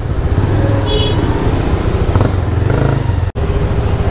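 Motorcycle engine running at low revs in slow, stop-and-go traffic: a steady, pulsing low rumble, with a momentary dropout about three seconds in.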